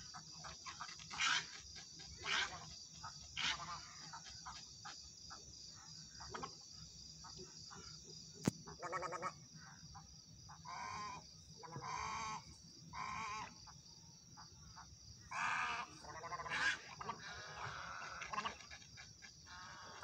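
Egrets calling: about a dozen rough calls at irregular intervals, some short and some drawn out, the loudest near the start and around the middle. A steady high-pitched background chirring runs underneath.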